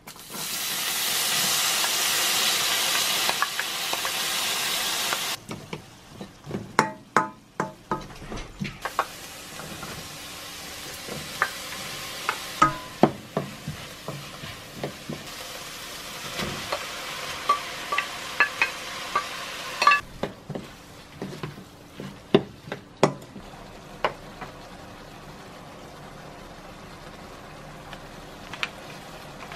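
Diced onion hits hot oil in a stainless steel pan and sizzles loudly for about five seconds. A spatula then stirs and clicks against the pan, with a second, softer stretch of sizzling from about 9 to 20 seconds. Near the end only scattered clicks of stirring remain.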